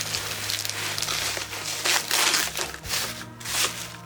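Packing material crinkling and rustling in irregular handfuls as a boxed avionics radio is unwrapped by hand, with the loudest crinkle about two seconds in.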